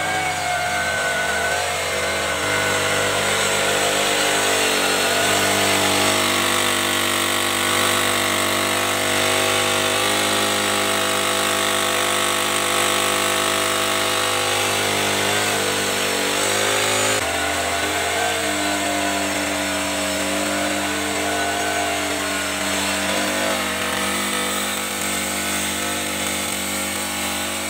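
Small brush-cutter engine, modified to drive a backpack blower, running steadily at speed; its tone shifts abruptly twice.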